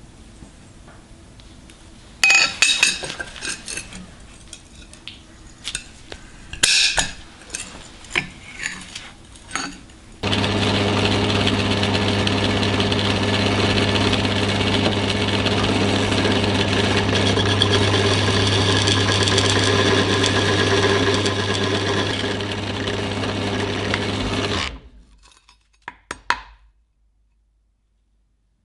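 Scattered metal clinks and knocks, then an electric power tool runs steadily with a strong low hum for about fourteen seconds and shuts off abruptly, followed by a couple of light knocks.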